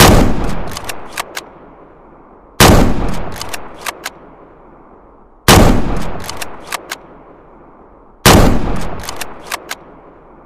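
Remington M1903 bolt-action rifle in .30-06 firing four single shots, about one every two and a half to three seconds. Each shot has a long fading echo and a few sharp clicks in the second after it.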